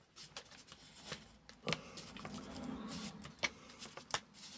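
Small clicks, scrapes and rustles of hands working a model locomotive's wheel axle through its chassis, with a few sharp clicks as the parts shift.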